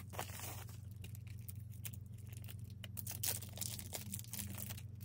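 Plastic shrink-wrap being torn and crinkled off a CD album case: faint, scattered crackles, a little louder about three seconds in.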